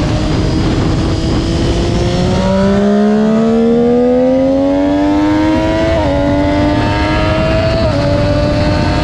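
Triumph Daytona 675R's inline three-cylinder engine pulling hard under acceleration, its pitch climbing steadily. The pitch drops briefly twice, about six and eight seconds in, as it shifts up a gear.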